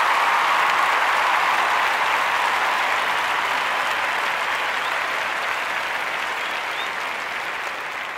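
Crowd applause, a dense steady clapping that slowly fades out.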